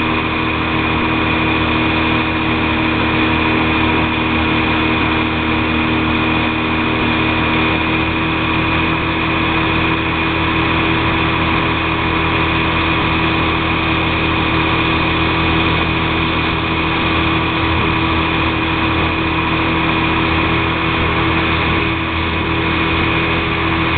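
Pontoon boat's engine running at steady throttle while towing a slalom water-skier, its pitch holding constant throughout.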